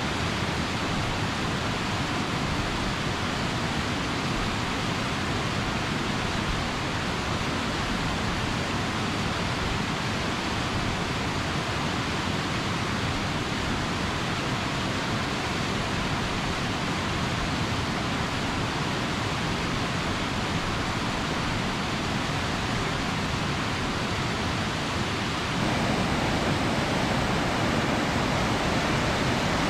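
Waterfall rushing steadily, a little louder near the end.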